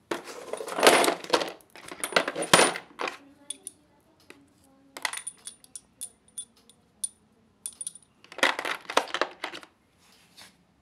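A plastic 63-piece socket set case being unlatched and opened, then chrome steel sockets and a ratchet clinking and rattling as they are picked through, in three bursts about a second in, around five seconds and near the end.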